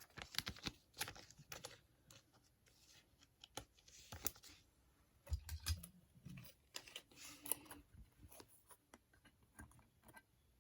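Faint rustling and scattered light clicks of trading cards and card packs being handled and shuffled.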